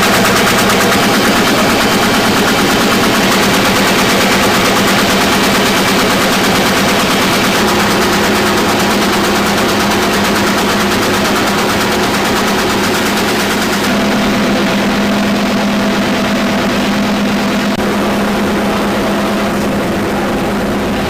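Offset printing press running at speed: a loud, steady, rapid mechanical clatter over a constant hum. The sound turns duller about two-thirds of the way through.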